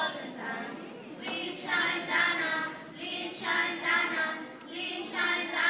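A group of children singing a song together in short phrases with brief breaks between them.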